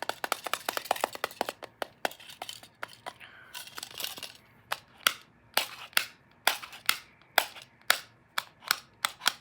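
Tapping on a small metal tin can. It starts with a fast run of clicking taps, then changes to slower, sharper single taps about two a second, each with a short ring.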